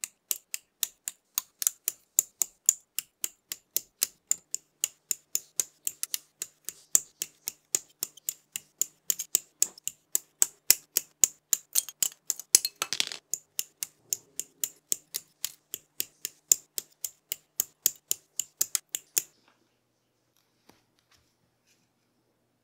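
Hobby sprue nippers snipping plastic model-kit parts off their runners: a rapid, even run of sharp clicks, about three to four a second, which stops about 19 seconds in, leaving only a few faint clicks.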